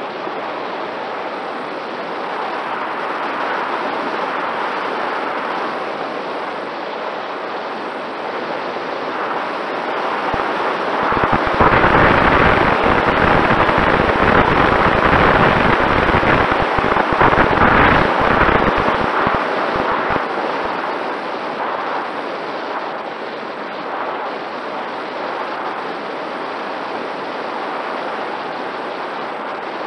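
Air rushing over the onboard camera's microphone on a Mini Talon RC plane in flight, with the brushless electric motor's faint steady whine underneath. From about ten to twenty seconds in the wind grows louder and buffets the microphone in dense crackling thumps.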